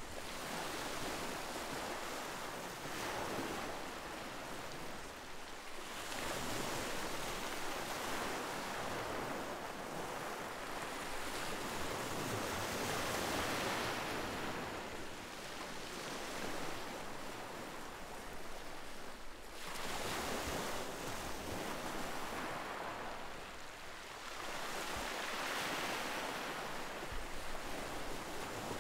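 Ocean surf breaking and washing in: a steady rushing noise that swells and fades every several seconds as each wave comes through.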